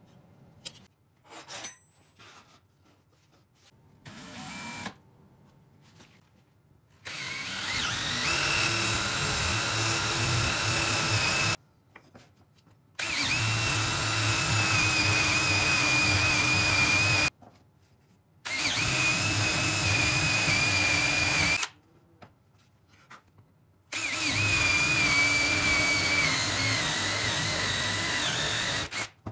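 Cordless drill boring holes into wooden blocks with a spade bit: four separate runs of a few seconds each, a steady whine over the rasp of the bit cutting wood, with short pauses between. Before the first run, a few faint light handling sounds.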